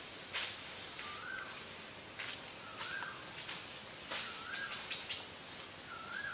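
A bird calling over and over: a short whistled note that rises and then levels off, about every second and a half, four times. Short, hissy rasps come in between the calls.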